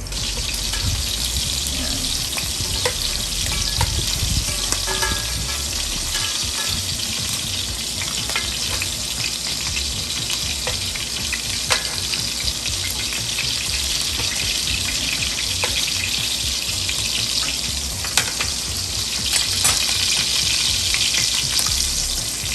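Meatballs pan-frying in a shallow layer of hot oil: a steady sizzle with a few sharp pops scattered through it, the meatballs still browning.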